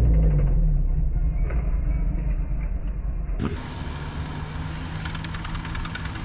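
A low rumble that fades. About three and a half seconds in, it switches suddenly to motorcycles riding in a group, their engines running.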